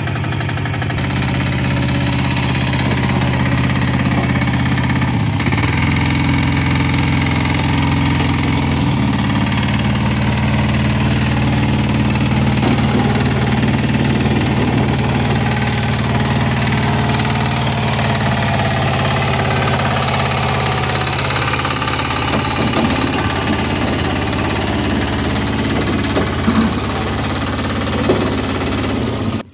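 Small engine of a two-wheel walking reaper running steadily as the machine is driven up a ramp, its speed stepping up and down a few times in the first ten seconds.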